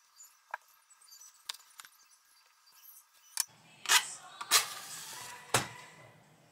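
Wooden match being struck: two loud short scrapes, then about a second of hiss as it flares. Before it, faint clicks of a glass jar candle being handled; near the end, one sharp knock.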